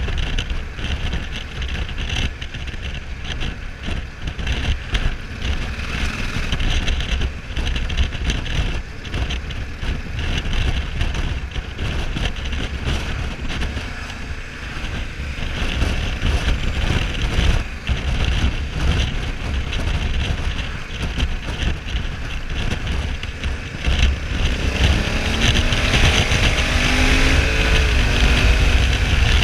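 Wind rushing over the microphone and the low steady rumble of the Honda Africa Twin 1100's parallel-twin engine while cruising at around 68 km/h. About three-quarters of the way through, the engine note grows louder and its pitch moves up and down as the revs change.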